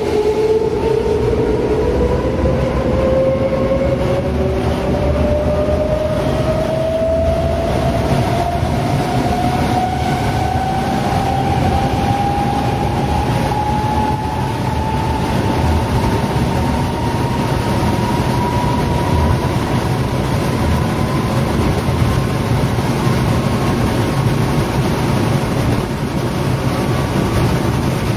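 DB Class 420 S-Bahn electric multiple unit accelerating, heard from inside the car. The traction motors' whine climbs steadily in pitch for about twenty seconds and levels off near the end, over the steady rumble of the wheels on the track.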